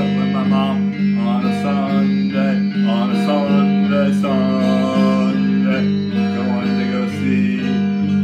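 Stratocaster-style electric guitar strummed in a steady rhythm while a man sings along.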